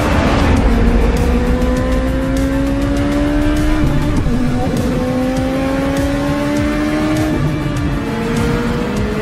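Czinger 21C's twin-turbo V8 accelerating hard, its note climbing through the revs and dropping at two upshifts, about four and seven seconds in. Background music plays underneath.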